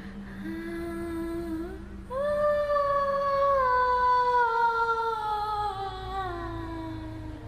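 Spooky Halloween sound effect of long wailing howls: a short howl, then from about two seconds in one long howl that rises briefly and slowly slides down in pitch, over a steady low drone.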